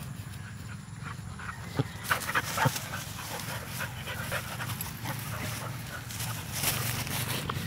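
Dogs playing rough: short, sharp dog sounds cluster about two to three seconds in, with a few more near the end, over a steady low hum.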